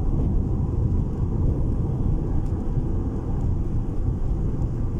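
Steady low rumble of a moving car's engine and tyres on the road, heard from inside the cabin.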